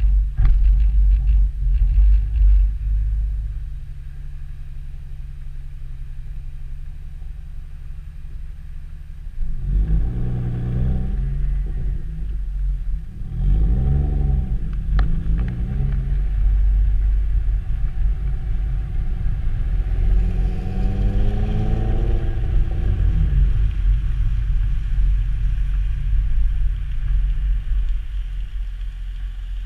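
Exhaust of a 2002 Nissan Maxima's 3.5-litre V6: a steady low rumble. From about ten seconds in, the engine note rises and falls several times as the revs climb and drop.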